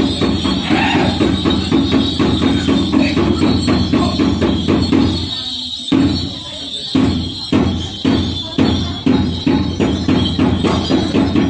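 Drum accompaniment for the Minahasa Kabasaran war dance: a rapid, even beat on a large drum that drops away briefly a little past the middle, then comes back as separate strokes about twice a second before quickening again near the end.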